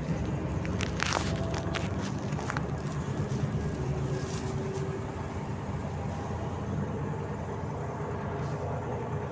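Volzhanin-5270 city bus driving, its engine running steadily as heard from inside the passenger cabin, with a few short clicks about one to two and a half seconds in.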